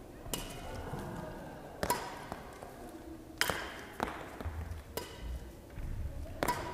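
Badminton racket striking shuttlecocks, a sharp ping with each hit, three clear strikes about a second and a half apart, with lighter knocks in between.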